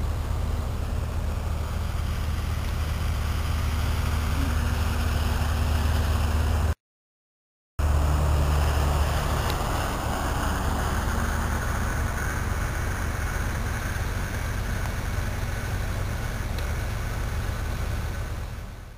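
Farm tractors pulling dump trailers, their engines running with a steady low drone. The sound cuts out for about a second partway through, returns louder, then slowly fades near the end.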